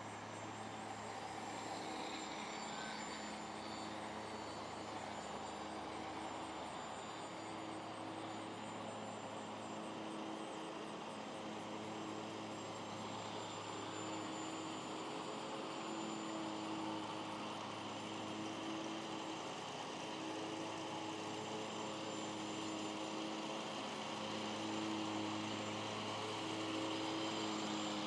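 Motor and propeller of a scratch-built foam RC plane in flight, a steady drone with tones that waver slightly as the throttle and distance change, growing a little louder near the end as the plane comes overhead.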